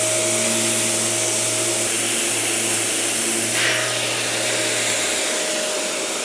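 Power sander with 120-grit paper, on a dust-extraction hose, running steadily while rubbing down dried filler on a plaster wall: a steady hiss with a whine. A low hum drops out about five seconds in while the hiss and whine carry on.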